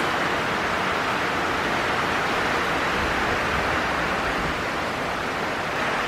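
Heavy rain and strong wind of a severe thunderstorm, a steady loud rushing hiss. A low rumble swells briefly about halfway through.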